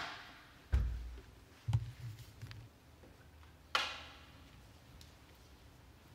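Scattered handling knocks at a doorway: a click at the start, low thumps about one and two seconds in, and a sharp click with a brief ring about four seconds in.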